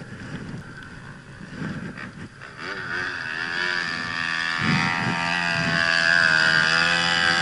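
Dirt bike engine revving hard as it climbs a steep sandy hill. It comes in about two and a half seconds in and grows steadily louder as it approaches, its pitch rising and dipping with the throttle.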